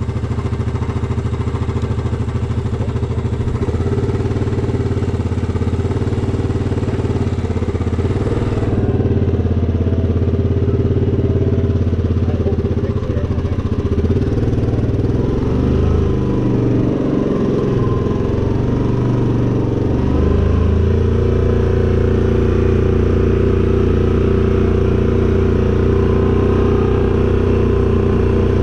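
Four-wheeler (ATV) engine running steadily. Its note wavers and changes pitch between about 12 and 20 seconds in, then settles again.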